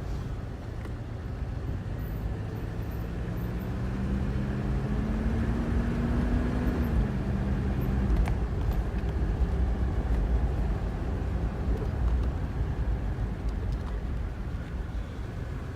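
A car being driven, with a steady low rumble of engine and road noise. The engine note climbs slowly for a few seconds, then drops back about seven seconds in and fades.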